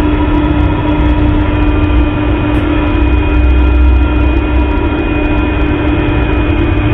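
Tormek T-2 Pro knife sharpening machine running, its 120 W motor turning the wheel at 120 rpm with a steady, even hum.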